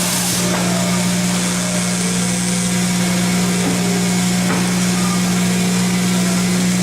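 Steady hum and hiss of woodworking shop machinery running, with no distinct strikes or changes.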